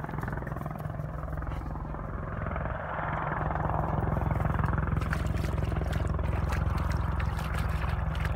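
AH-64D Apache attack helicopter flying past at a distance: the fast, even chop of its main rotor with engine noise over it. It grows louder about three seconds in, then holds steady.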